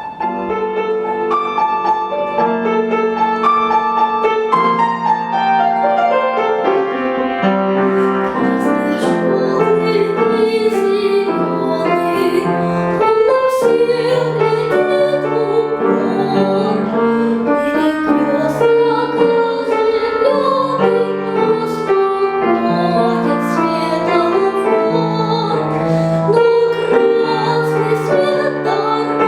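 Piano accompaniment with a young girl singing a children's song in a classical (academic) vocal style; the piano comes in at once and the voice joins over it.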